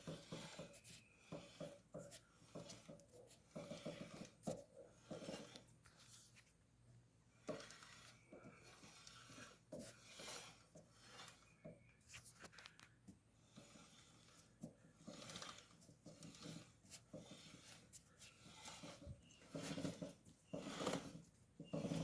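Faint, irregular rubbing and scraping from a rear wheel, the odd noise under investigation, with a few sharp clicks among the uneven bursts.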